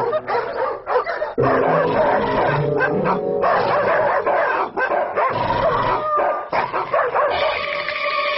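Upbeat cartoon music with yelping, bark-like vocal cries over it.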